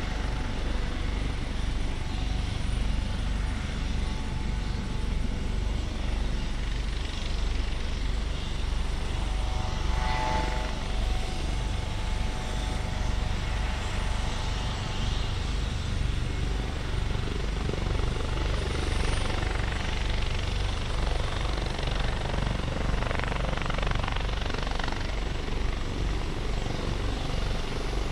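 Airbus Helicopters AS365 Dauphin twin-turbine helicopter running on the ground with its rotors turning before take-off. A steady low rotor beat sits under a turbine whine that comes and goes.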